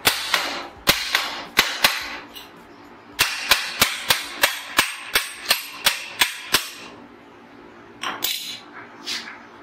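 Sharp metal knocks at a motorcycle's rear wheel hub as the spacer and axle are driven into place. A few come unevenly, then a steady run of about three a second, then a few more near the end.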